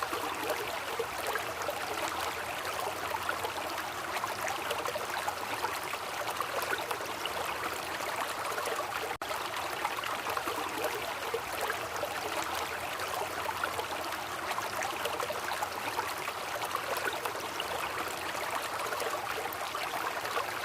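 Waterfall: a steady rush of falling, splashing water, broken by a momentary dropout about nine seconds in.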